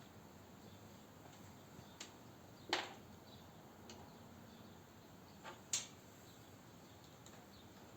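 A few light clicks of USB sticks being handled in a PC case's front USB ports: two sharper clicks about three seconds apart, with fainter ticks around them, over a faint background hiss.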